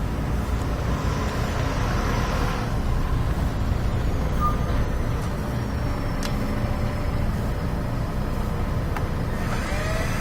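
Steady rush of exhaust air blowing out of a running electric dryer's vent duct. The strong flow shows the vent is not clogged.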